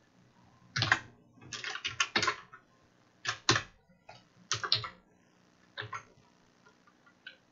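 Computer keyboard typing in short, irregular bursts of keystrokes with brief pauses between them.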